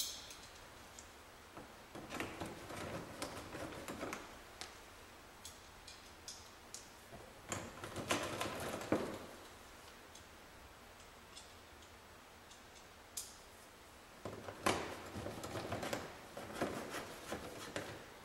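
Plastic engine splash pan being lined up under the car and its Torx screws started: light clicking and rattling of plastic and screws in three spells, about two, eight and fifteen seconds in, with scattered single ticks between.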